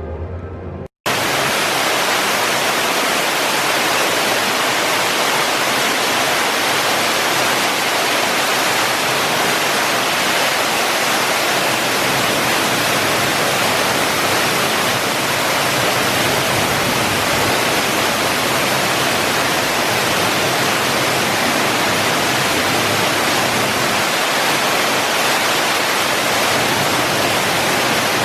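Underground waterfall inside a mine tunnel: a loud, steady rush of falling water. It begins suddenly about a second in, after a moment of music cuts off.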